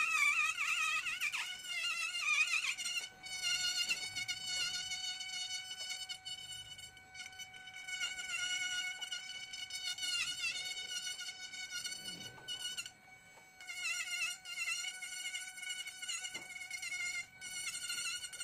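Handheld rotary carving tool with a burr, whining at high speed as it cuts ngọc am wood. The pitch wavers as the burr bites, and the sound drops away briefly about two-thirds of the way through.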